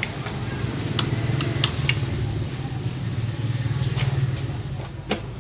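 A small motorcycle engine running steadily at an even low speed, a little louder through the middle, with a few sharp metallic clicks and taps over it.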